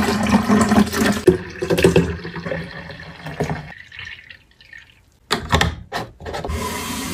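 Juice being poured from a carton into a glass carafe as it fills, stopping a little past halfway. Near the end there are a few short clicks as a plastic lid is pressed onto the carafe.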